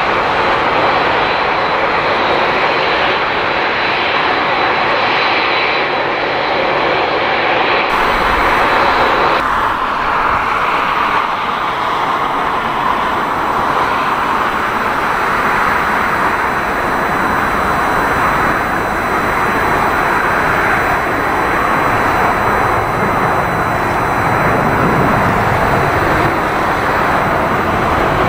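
Jet airliner engines running with a loud, steady rushing noise. About a third of the way in the sound changes abruptly to a different stretch of jet noise.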